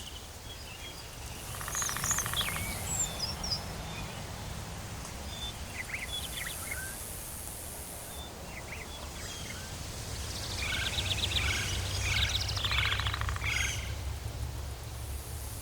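Tropical forest ambience: several birds calling with scattered chirps and short whistles, including a quick run of repeated notes about two-thirds of the way in, over a steady low rumble, with a high hiss that comes and goes.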